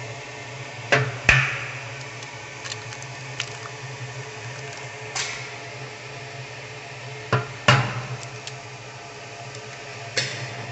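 Eggs being cracked against an aluminium idli plate and emptied into its greased cups: sharp taps, in pairs about a third of a second apart about a second in and again about seven seconds in, with a few fainter taps between and one more near the end. A steady low hum runs underneath.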